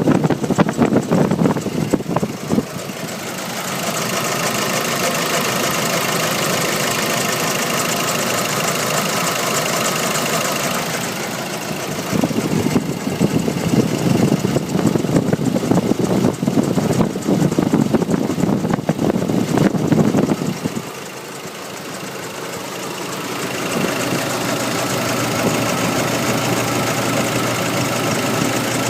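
Nissan YD25 2.5-litre four-cylinder turbodiesel idling steadily, with a knocking noise whose cause is unknown: the owner suspects the injectors, timing chain, belts, pulleys or turbo. Louder stretches of rumbling noise come over it in the first couple of seconds and again in the middle.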